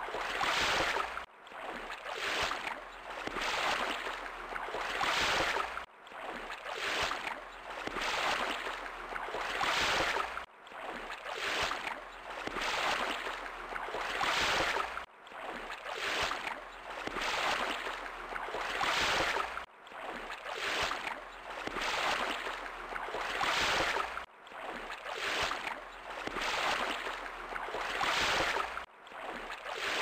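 Sea surf: waves breaking and washing up the shore in swelling, rushing surges. The same short stretch repeats, with a brief drop in sound every four to five seconds.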